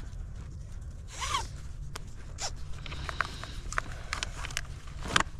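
A zipper on a bike saddlebag being pulled open in several short rasping strokes, with sharp handling clicks in between.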